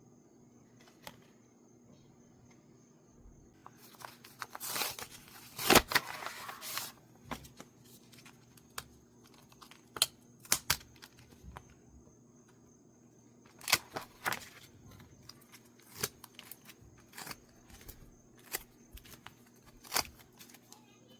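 A mail package being torn open: a long tearing rip about four seconds in, then scattered crinkles and small clicks as the wrapping and contents are handled.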